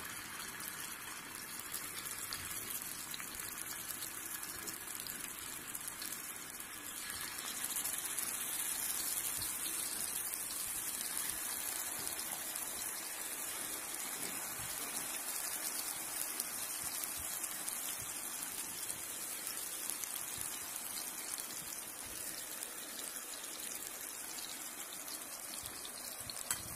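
Marinated fish pieces sizzling as they shallow-fry in a little hot oil in a kadai: a steady, rain-like hiss that grows brighter and a little louder about seven seconds in.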